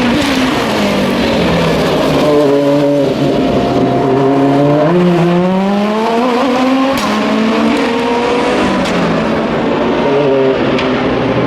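Several endurance race car engines overlapping as the cars pass. Their pitch drops through the first seconds, climbs again about halfway through, then drops and rises once more near the end.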